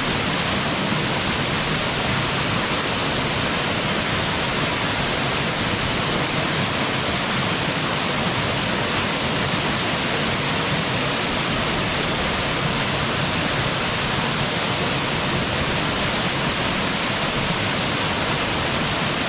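Waterfall pouring steadily: a constant, even rush of falling water with no change in level.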